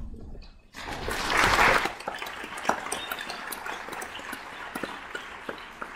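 Audience applause starting about a second in, loudest in its first second, then settling into steady clapping that eases off.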